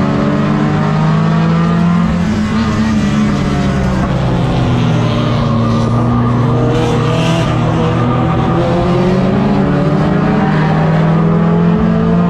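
Tuner race car's four-cylinder engine heard from inside the cockpit, running hard on track, its revs dipping and climbing again as it goes through the turns.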